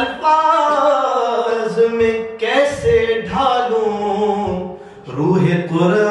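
A man singing an unaccompanied Islamic devotional chant into a microphone, holding long notes that slide and curl in pitch. A short break comes near the end before the next phrase begins.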